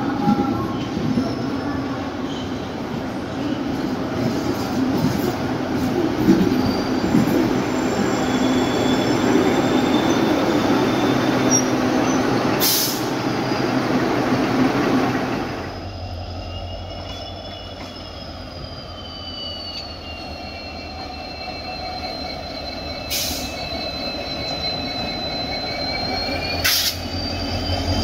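A diesel train, a WDG4 locomotive hauling a DEMU rake, running on the track with a steady hum. About halfway the sound changes abruptly to a deep rumble under high wheel squeal that slides up and down in pitch, with a few sharp clicks.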